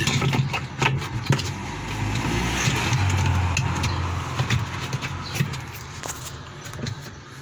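Scattered plastic clicks and knocks of a washing-machine drain valve seal being pressed back into its seat by hand, over a steady low mechanical hum that swells about two to three seconds in.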